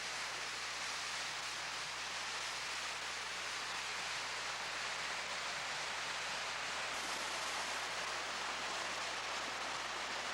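Waterfall rushing water, a steady hiss without any pitch.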